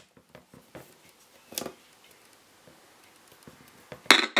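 Faint clicks from the unmarked switches on top of a flip radio alarm clock being tried by hand, followed near the end by a short, loud burst of noise.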